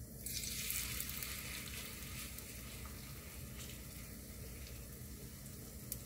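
Lettuce-and-pork gochujang pancake batter dropped into hot oil in a frying pan, sizzling sharply as it lands a moment in, then easing into a steady sizzle.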